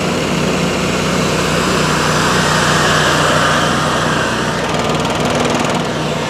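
Engine of a commercial stand-on lawn mower running steadily as the mower drives along pavement, loudest about halfway through as it passes close.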